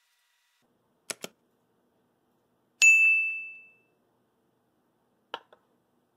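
Two soft clicks, then a single bright ding that rings out clear and fades over about a second, then two more soft clicks.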